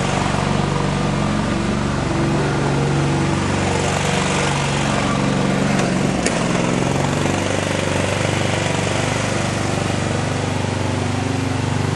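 Garden tractor's 22 hp Briggs & Stratton ELS V-twin engine running steadily as the tractor drives along, its pitch shifting a little. A single sharp click about six seconds in.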